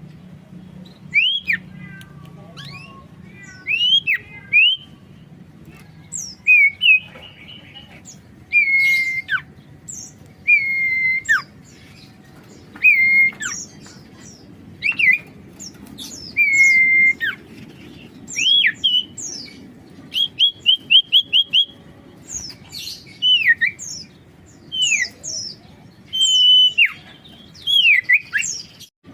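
Common iora (cipoh or sirtu) singing loudly: clear whistled phrases every second or two, some held level and then dropping sharply in pitch, others sweeping quickly upward. About two-thirds of the way in comes a fast run of about six identical short notes.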